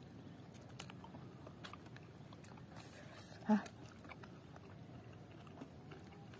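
Faint eating sounds of spicy seblak with chicken feet: scattered small clicks and chews from the mouth and utensils. About three and a half seconds in comes one short, low voiced sound, like a brief hum.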